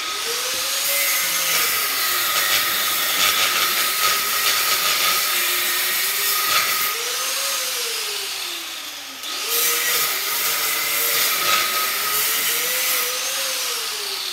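Angle grinder with a cutter blade cutting through an aluminum heat sink clamped in a vise: a loud, continuous grinding hiss, the motor's pitch rising and falling as it cuts, with a brief dip about nine seconds in.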